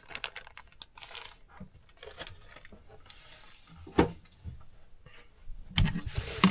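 Hands working with parts and tools: scattered small clicks and light rustling, with a sharper knock about four seconds in and a few more knocks near the end.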